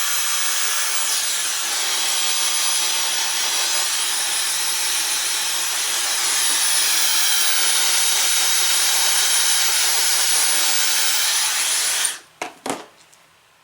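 Dyson hair dryer running, blowing on hair: a steady rush of air with a thin, high whine on top. It switches off about twelve seconds in, followed by a few short knocks as it is handled.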